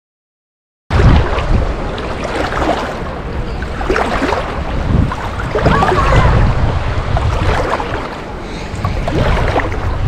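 Silence, then from about a second in, seawater sloshing and splashing around a camera at the water's surface while swimming, with a heavy rumble of wind and water buffeting the microphone.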